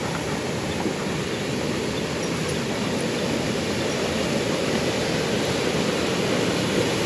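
Small waterfall cascading over rock ledges into a creek: a steady rushing of falling water that grows slowly louder as it draws nearer.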